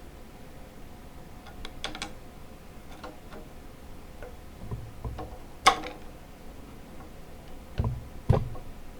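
Hand tools clicking and knocking against metal Model T engine and transmission parts during assembly. There are a few light clicks, a sharp click about halfway through, and two duller knocks near the end.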